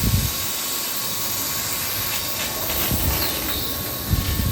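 CNC tube laser cutter bevel-cutting a 6 mm carbon steel square tube: steady hiss of the cutting head's assist gas with a thin steady whine, and a few low thumps.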